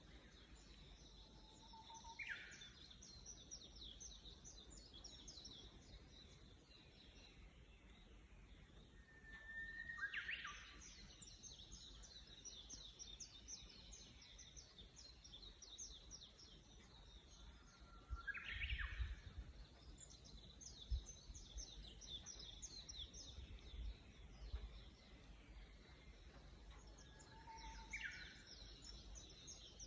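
Faint chorus of several small birds chirping, mostly quick runs of high notes, with a louder, sharper call repeating about every eight seconds.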